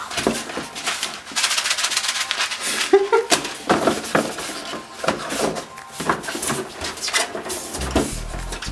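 White molded packaging trays being lifted and slid out of a large computer box: irregular scraping, rubbing and knocking of the packing material against the box, with a few short squeaks about three seconds in.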